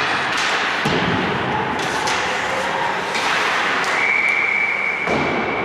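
Ice hockey play in a rink: a steady scraping hiss, with several sharp knocks and thuds of sticks, puck and boards.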